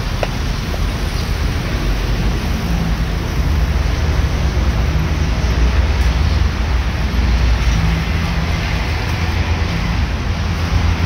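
Steady low rumble and hiss of outdoor background noise, with one light tap of a knife on a wooden cutting board at the very start.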